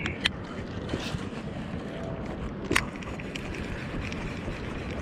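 Steady rushing noise of wind and water on the microphone of a fishing boat moving slowly along the shore, with a couple of sharp clicks.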